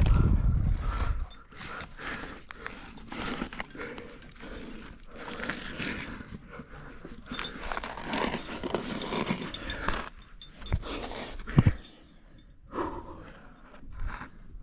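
A rock climber breathing hard during a move, with hands and shoes scuffing against the rock in irregular bursts. A low rumble comes in the first second, and a single sharp knock sounds near the end.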